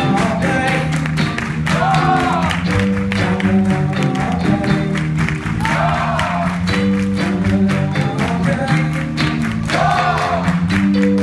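Rock band playing live: electric guitar and bass over a steady beat. A male singer's voice comes in with short phrases about every four seconds.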